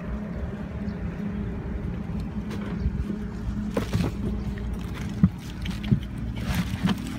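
A small engine running steadily at an even pitch, with a few short knocks in the second half.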